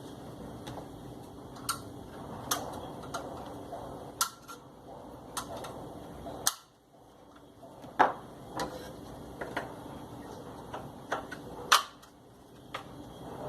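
Scattered sharp clicks and knocks of washing-machine mechanism parts being handled and fitted, about a dozen spaced irregularly. The loudest come about eight and twelve seconds in.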